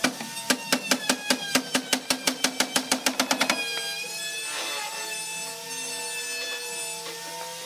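A hammer tapping a wooden table-frame joint in a fast run of about twenty sharp strikes that speed up, over background music. The strikes stop about three and a half seconds in and the music carries on alone.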